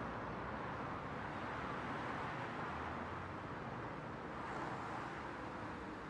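Steady background ambience of street traffic, an even wash of noise with no single sound standing out.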